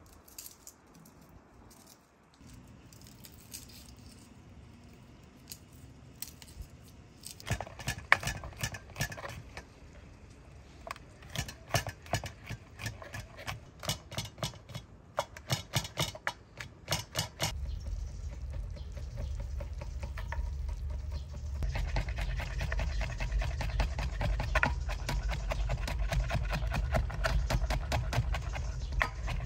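Kitchen knife chopping garlic on a wooden cutting board: a quiet start, then scattered knocks from about seven seconds in, turning into a fast, steady run of chopping about halfway through as the garlic is minced.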